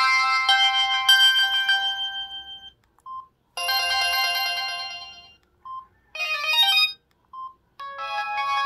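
Samsung SGH-T349 phone ringtones played one after another. One melody fades out in the first three seconds, a second tune starts about half a second later and dies away, a short quick run of notes follows, and a new tune begins near the end, with brief single beeps in the gaps between them.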